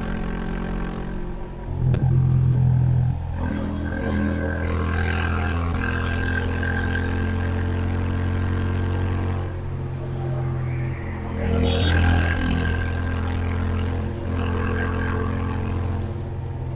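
Honda H'ness CB350's single-cylinder engine running under way. The throttle opens about two seconds in and again around twelve seconds, and eases off around ten seconds.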